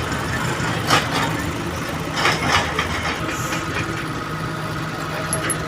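Excavator's diesel engine idling steadily, with a sharp knock about a second in and a short run of knocks around two and a half seconds in.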